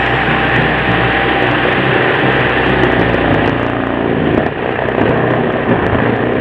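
Chainsaw engine running steadily, with a brief dip about four and a half seconds in.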